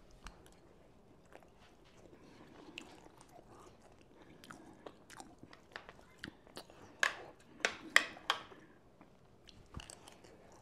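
Close-miked chewing and biting of breakfast food: soft mouth clicks and smacks throughout, with a run of louder smacks about seven to eight seconds in.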